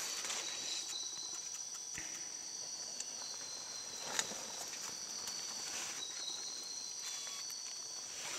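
Night insect chorus: a steady, high-pitched continuous trilling, with a couple of faint clicks about two and four seconds in.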